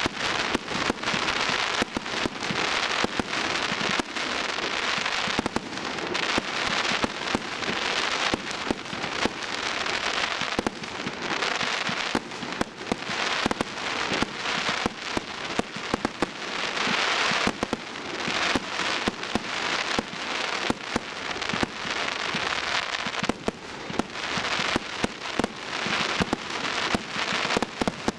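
Aerial fireworks display: shells bursting one after another with crackling stars, a dense run of sharp bangs and crackle with no break.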